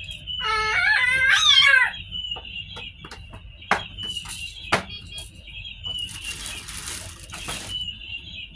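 A high, rising squeal lasting about a second and a half near the start, then two sharp plastic clicks from baby-walker parts being handled, and a hiss lasting about a second and a half near the end.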